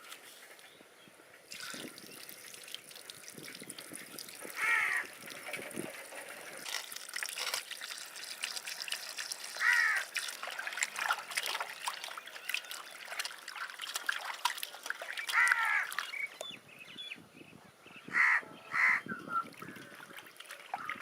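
Crows cawing now and then, about five calls with the last two close together, over trickling water and many small clicks and knocks of handling.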